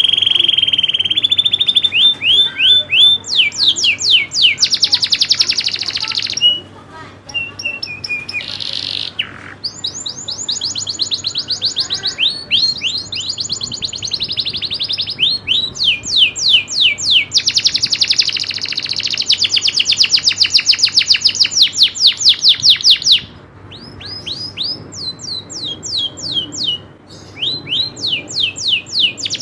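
Domestic canary singing a long song of fast rolling trills, rapid runs of repeated high sweeping notes, broken by a few short pauses.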